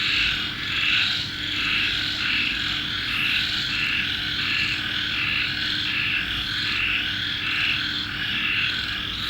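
Rhythmic animal chorus pulsing steadily about two to three times a second, over a faint steady low hum.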